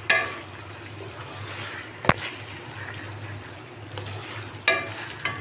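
Chicken karahi of tomato, yogurt and spices simmering in an aluminium pot while it is stirred with a wooden spoon: a wet bubbling and scraping, with a sharp knock about two seconds in and short scrapes at the start and near the end.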